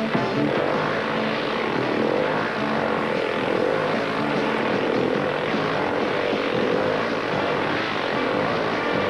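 Motorcycles circling at speed inside a steel-mesh globe of death, their engines running together in a steady, dense drone.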